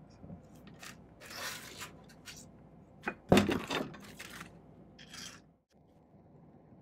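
Small clicks, taps and brief scrapes of steel pliers and tiny silver bezel rings being handled and set down on the bench, with the loudest clatter about three seconds in.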